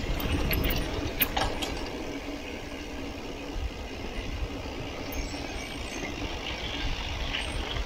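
Wind rumbling on the microphone and tyres crunching over gravel as a mountain bike rolls along a dirt road. A few sharp clicks and rattles from the bike over bumps come about a second in.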